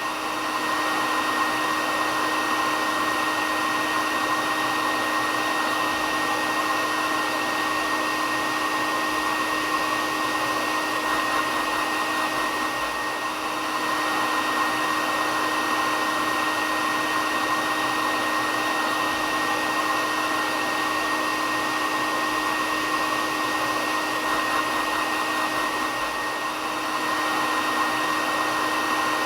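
Hair dryer running steadily: a continuous airy rush with a steady whine, dipping slightly in loudness twice.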